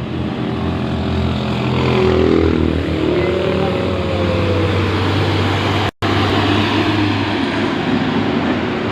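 Heavy truck engine labouring up a steep climb: a steady low drone, with a whining tone that falls in pitch a few seconds in. The sound cuts out for an instant about six seconds in.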